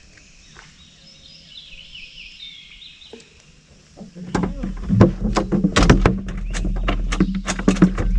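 Birds chirping, then about four seconds in a small boat's motor starts a steady low hum, with a run of sharp knocks and clatter against the boat.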